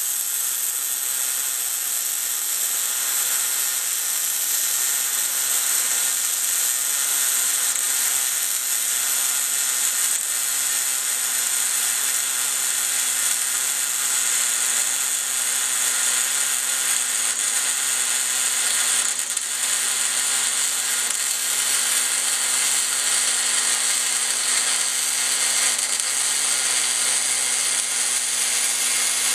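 Kemppi MIG welder running a short-arc weld with .030" wire at 240 inches a minute, about 120 amps, on a 10-gauge steel T-joint: a steady, even arc crackle. The machine is near the limit of what it can do on 110 V, and the puddle keeps filling back up and shortening the arc, which the welder doesn't much like.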